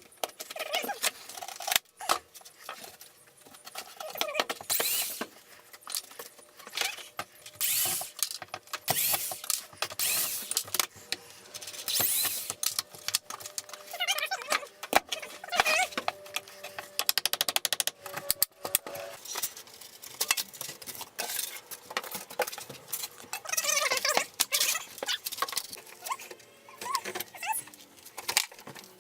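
Old wood paneling and furring strips being pried and ripped out by hand: irregular knocks, scrapes and rattles, with a few short squeaks.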